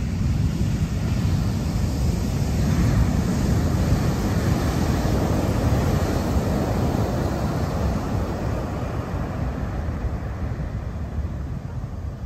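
Heavy surf from a large swell breaking on a sandy beach: a continuous crashing wash of waves with a deep rumble. It is loudest a few seconds in and eases near the end, with wind rumbling on the microphone.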